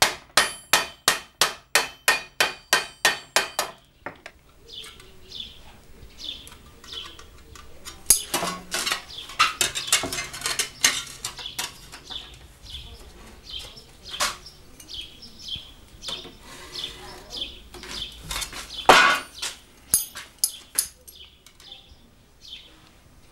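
A tinsmith hammering sheet metal on a block: even, ringing metallic strikes, about three or four a second, stopping about four seconds in. Then tin snips cut the sheet, giving a string of short clicks and crunches, with louder knocks about eight and nineteen seconds in.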